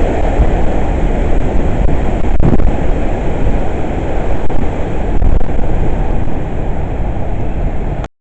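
Hurricane-force wind blowing hard in gusts, with a heavy low rumble of wind buffeting the microphone; it cuts off suddenly near the end.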